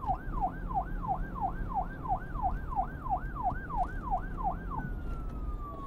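Electronic siren-like sound effect: a tone swooping quickly downward over and over, about three times a second, then one long slow falling glide near the end, over a low rumbling noise.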